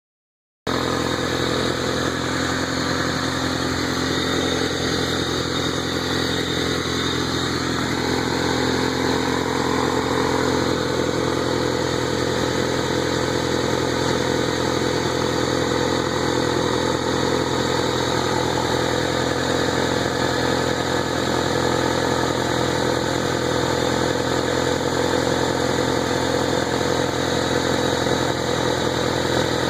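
1994 Honda Civic's four-cylinder engine idling steadily while its cooling system is burped to bleed trapped air out through a funnel on the radiator.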